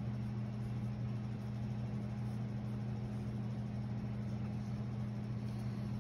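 A steady low mechanical hum with a faint even hiss: the room tone of running machinery, such as a ventilation fan.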